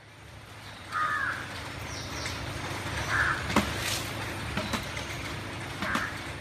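Crows cawing, about three calls a couple of seconds apart, with a few sharp snaps and a steady low background hum.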